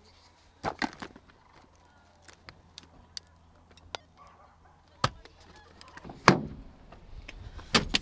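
A few sharp clicks and knocks from handheld two-way radios and their cardboard box being handled, spread out over a few seconds.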